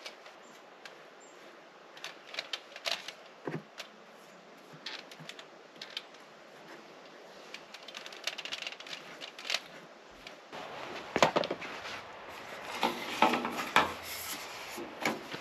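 Irregular light clicks and taps of small objects being handled, getting busier and louder about ten seconds in.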